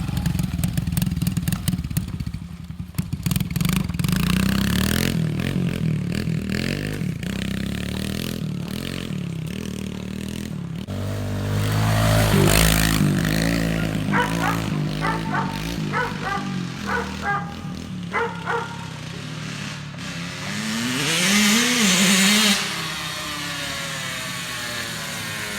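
Engine of an off-road machine running and revving up and down, loudest twice, with a dog barking repeatedly about halfway through.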